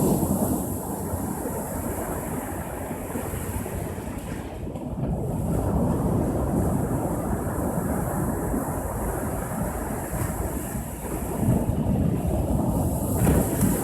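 Ocean waves breaking and washing on the shore, the surf swelling and easing a few times, with wind rumbling on the microphone.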